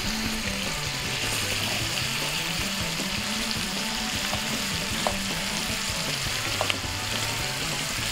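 Liver and bacon sizzling steadily in a frying pan, with a few light clicks as a knife and wooden spoon touch the food and the pan.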